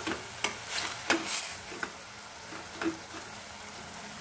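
Spatula stirring and scraping chopped fenugreek leaves in a stainless steel pan, over a low sizzle as the leaves' water cooks off. There is a quick run of strokes in the first second and a half, then only one more near three seconds.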